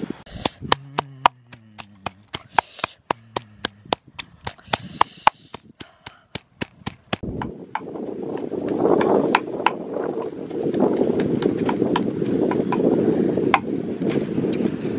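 A stick pounding and grinding ingredients in a small cup, giving sharp repeated knocks about three or four a second. From about halfway, wind rumbles on the microphone, with fewer knocks heard over it.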